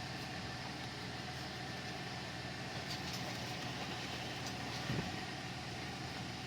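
Steady mechanical hum of a running fan or air-conditioning unit. There are a few faint clicks and a soft knock about five seconds in, from the plastic parts of a string-trimmer head being handled and set together.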